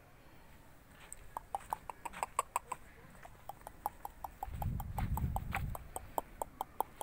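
A fast run of short, sharp clicks, several a second, starting about a second in, with a low rumble partway through.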